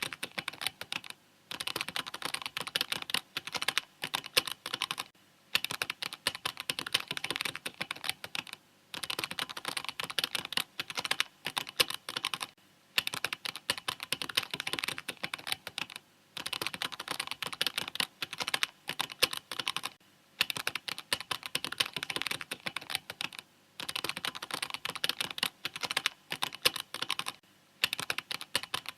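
Mechanical keyboard typing: rapid, uneven runs of key clicks, broken every few seconds by short pauses of about half a second.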